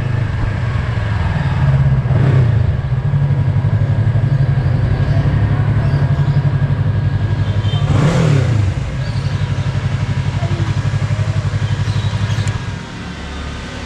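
Yamaha R3's parallel-twin engine running as the bike rolls up and stops, then idling steadily, with one brief rise and fall in pitch about eight seconds in.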